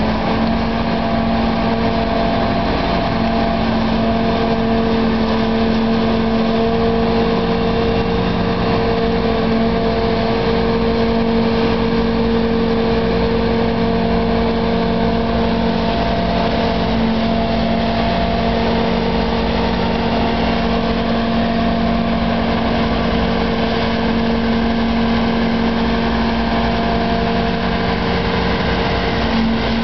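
Diesel engine of a Goldhofer multi-axle modular transporter running steadily under load, a constant-pitched hum over a low rumble, as the heavy rig creeps along carrying a bridge girder.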